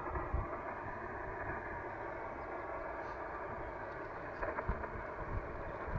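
Amateur radio transceiver's speaker giving out a steady band of receiver hiss, an open channel with no voice copied from the called station.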